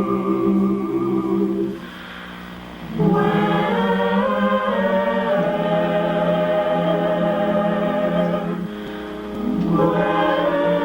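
A choir singing sustained held chords, with a short break about two seconds in and a softer moment near the end before the voices swell again.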